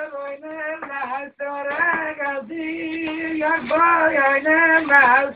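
A woman singing slowly, with long held notes that waver and turn in pitch and a short break about a second and a half in.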